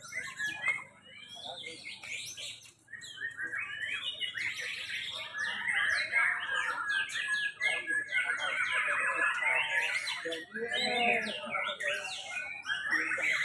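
Many caged white-rumped shamas (murai batu) singing at once: overlapping fast whistled phrases and short sharp notes. The chorus grows denser about four seconds in.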